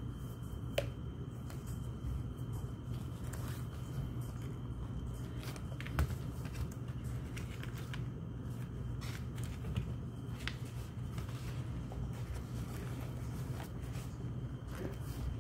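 Hands handling a fabric-covered planner and its spiral notebook: faint rustling and a few soft clicks, the sharpest about six seconds in, over a steady low room hum.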